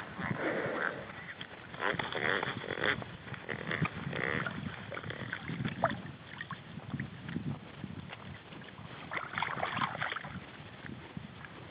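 Water sloshing around a small fishing boat with irregular handling knocks, one sharper knock about six seconds in.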